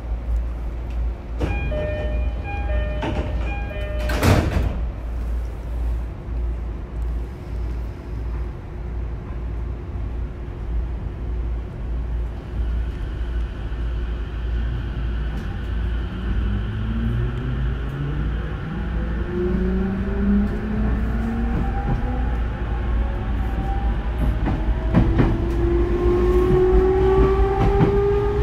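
Inside a renewed JR East E231-0 series EMU (motor car MoHa E231-138): a door chime sounds and the sliding doors shut with a knock a few seconds in, over a steady low rumble. About halfway through the train pulls away, and the traction motor and inverter whine climbs steadily in pitch as it accelerates.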